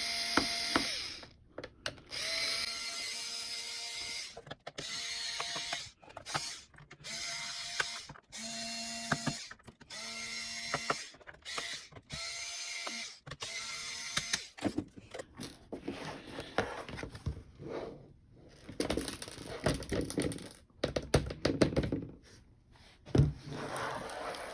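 Small electric screwdriver running in short bursts of a second or two, about seven times, backing out the screws of a laptop's bottom panel. Later come scattered clicks and knocks of handling.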